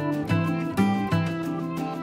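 Background music: a melody of short pitched notes changing every few tenths of a second over lower held bass notes.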